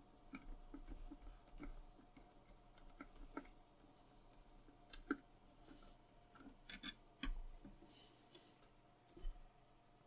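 Small screwdriver working screws out of a vacuum cleaner's handle housing: faint, scattered clicks and short scrapes, a few of them louder about five to seven seconds in.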